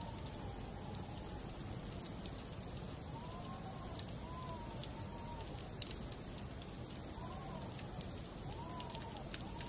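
Wood fire burning in a fireplace: a steady low hiss with scattered sharp crackles and pops. A faint, wavering whistle rises and falls now and then.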